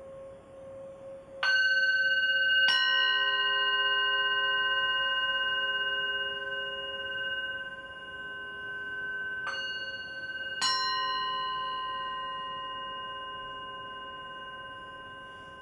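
Hand-held metal singing bowl struck with a mallet four times, in two pairs about a second apart, each strike leaving a long, bright ringing tone with several overtones that slowly fades.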